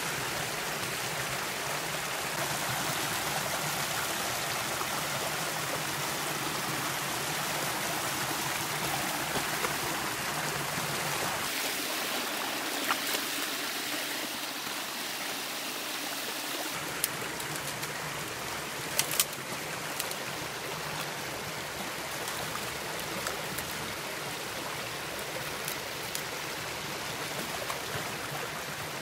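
Shallow rocky creek running and babbling over stones, with dogs wading and splashing through the water and a few short sharp sounds about halfway through.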